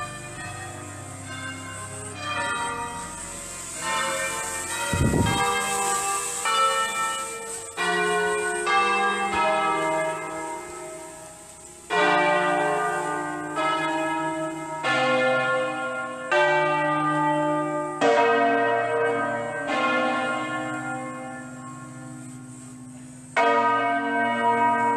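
Church bells pealing: strokes at several different pitches follow one another about once or twice a second, each ringing on and dying away. There is a low thump about five seconds in.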